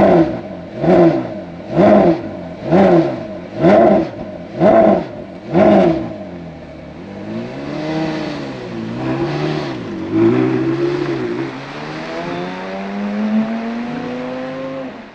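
Porsche Carrera GT's V10 engine revved in a run of sharp blips about once a second. The car then drives off, its revs swelling and dropping several times before a longer steady climb in pitch.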